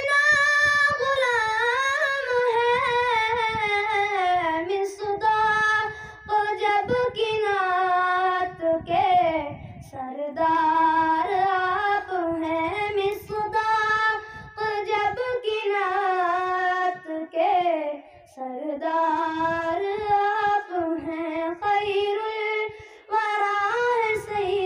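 A boy singing a naat, an Urdu devotional poem in praise of the Prophet Muhammad, solo into a handheld microphone. The melody wavers and is sung in long phrases broken by short pauses for breath.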